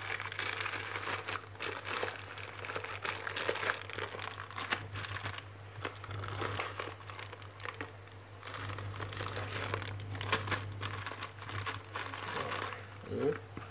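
Clear plastic wrapping crinkling and a cardboard box rustling as a plastic-bagged roll of stranded wire is worked out of the box by hand, in irregular small crackles, over a steady low hum.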